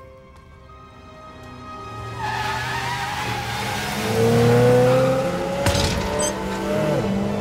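Van engine revving and tires spinning and squealing on dirt, building from about two seconds in into a long rising squeal, with one sharp crash a little past halfway; dramatic film score plays underneath.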